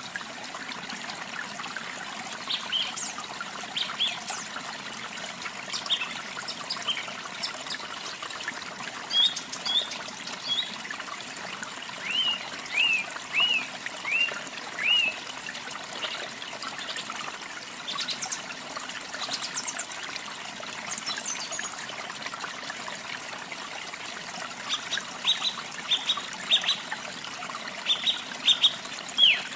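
Steady trickle of running water with small songbirds chirping over it: scattered short high notes, and runs of quick downward-sliding chirps about halfway through and again near the end.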